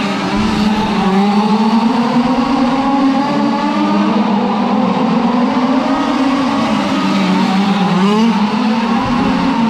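Several 1/5-scale gas RC cars' small two-stroke engines running and revving together as they race, their pitches rising and falling out of step. One engine winds up sharply about eight seconds in.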